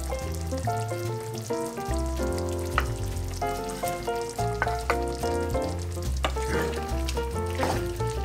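A pot of beef stew with carrots simmering and sizzling. Chopped bacon is tipped in about four seconds in and stirred with a wooden spoon, with scraping in the pan near the end. Background instrumental music with a steady bass line plays throughout.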